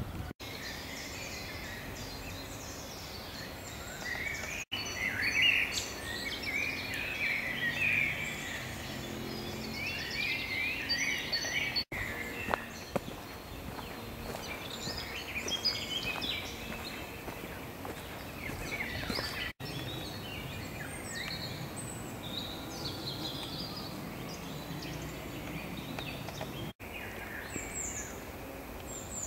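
Several songbirds singing, with short chirps and trills overlapping over a steady outdoor hiss. The sound drops out for an instant five times.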